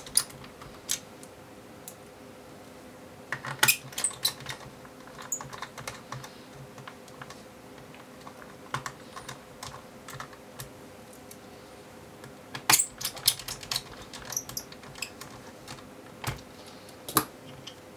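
Scattered small clicks and ticks of tiny metal screws being picked up and driven in with a small Phillips screwdriver in a laptop's drive bay. The tip clicks on the screw heads and the metal chassis in short clusters, a few seconds in, around two-thirds through and near the end.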